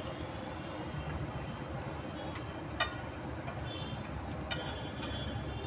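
Steady street-traffic noise with a few sharp metallic clicks, the loudest about three seconds in: a metal spatula striking the hot griddle (tawa) while a paratha fries.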